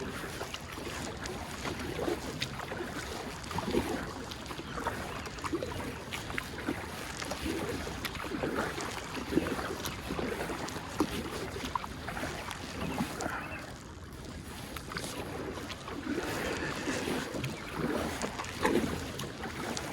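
Kayak paddle strokes dipping and splashing in the river water, a splash about every second, with some wind on the microphone.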